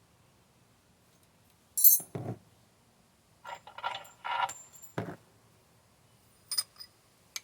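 Loose metal parts and tools being handled: a sharp metallic clink about two seconds in, then clattering and scraping, a knock, and another clink near the end.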